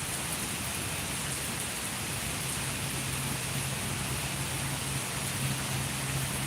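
Steady rain, heard as an even hiss, with a low steady hum underneath that grows a little stronger about three seconds in.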